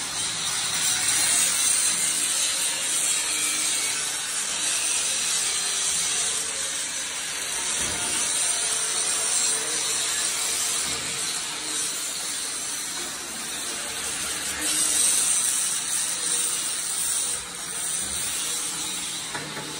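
Steel fabrication work on excavator buckets: a continuous harsh hiss and rasp from metalworking tools that swells and dips, with a short dip near the end.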